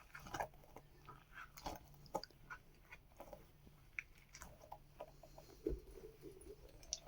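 Squishy toys being handled and squeezed close to the microphone: soft, irregular crackles, taps and squelches, a few per second.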